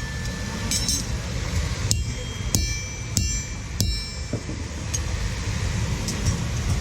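A farrier's hammer striking metal, about six separate blows with a high ringing after each, over a steady low rumble.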